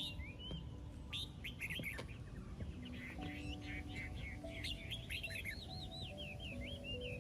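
Small birds chirping and twittering, many quick calls overlapping, over soft held music notes and a low background rumble.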